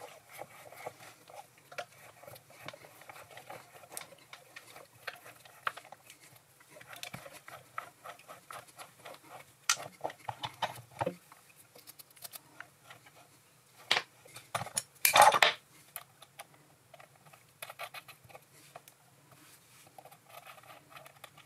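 Threading die in a hand-turned die holder rechasing the thread on a stainless steel stud held in a lathe chuck: irregular small metallic clicks and scrapes as the die cuts, with a louder cluster of clinks about fifteen seconds in.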